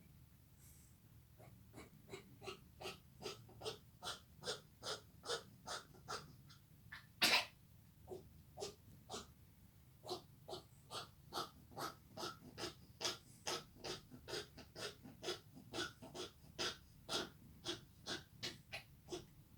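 Yorkshire terrier coughing in a long run of short, rhythmic bursts, about two a second, with one much louder burst about seven seconds in followed by a short pause.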